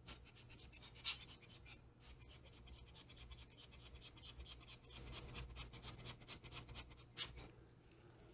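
Near silence: a low steady hum with faint, rapid scratchy ticking throughout.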